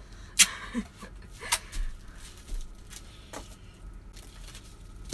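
A few sharp clicks and knocks from handling, the loudest about half a second in, with soft rustling between them.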